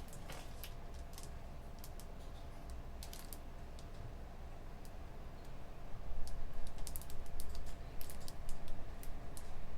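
Computer keyboard being typed on in scattered key clicks, which turn louder and quicker about six seconds in, over a steady low hum.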